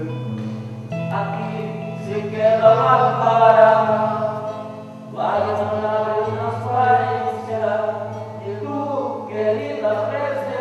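A song: voices singing together over held low notes that change every second or two, swelling loudest a few seconds in.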